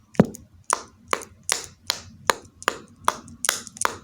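A series of sharp taps or clicks on a hard object, about ten in a few seconds, unevenly spaced, some with a short ring.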